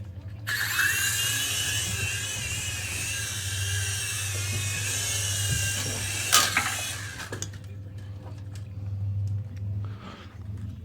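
Small electric motors and rotors of a GPToys Durant X-Copter infrared toy helicopter whining, their high pitch wavering as it flies. A sharp knock comes about six seconds in, and the whine stops about a second later.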